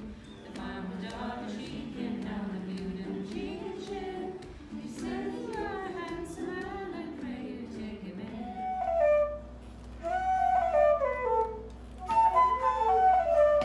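A group singing a folk song in unison, accompanied by a strummed string instrument. About two thirds of the way through it gives way to a wooden transverse flute playing a quick Irish-style tune.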